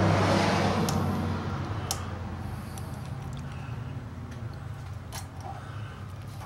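A few faint clicks as the plastic magnetic water-conditioner clamp is shifted and settled by hand on a water pipe, two sharp ones about two and five seconds in, over a steady low hum.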